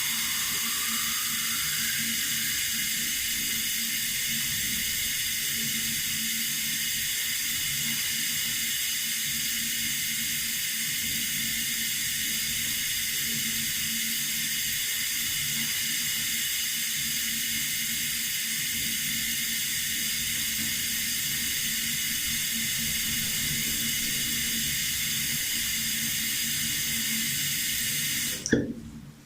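Water running steadily from a tap, an even rushing noise that cuts off abruptly near the end with a brief knock.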